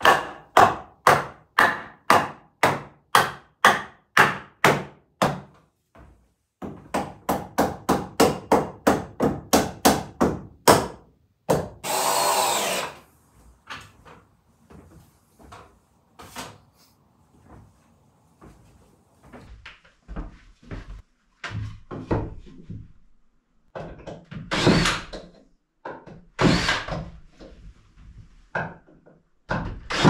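A hammer driving nails into wood in two runs of steady blows, about two to three a second, followed by a cordless drill running in short bursts near the middle and toward the end.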